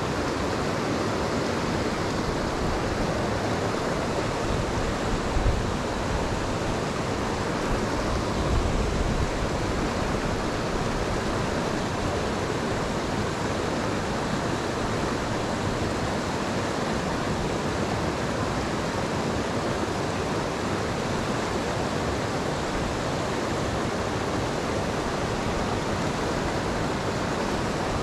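Rocky mountain stream rushing steadily, an even, unbroken noise of running water, with two brief low bumps about five and eight seconds in.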